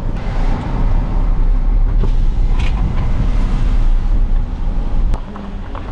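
Steady low rumble of a car driving, heard from inside the cabin: road and engine noise with a single small click about five seconds in.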